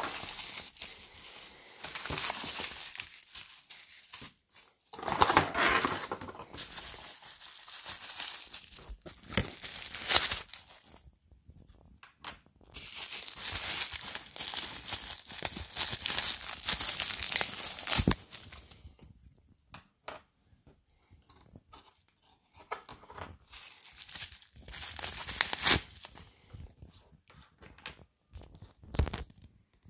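Corrugated cardboard packing being torn and pulled away by hand, in irregular spells of ripping and rustling with short pauses, and one sharp knock about 18 seconds in.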